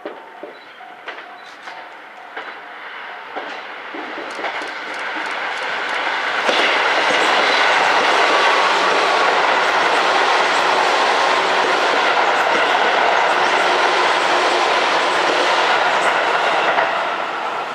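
Tobu 8000 series electric train approaching and passing close by. Its wheels click over the rail joints, the clicks coming faster as it nears, then a loud steady run of wheel and rail noise from about six seconds in, fading near the end as the last cars go by.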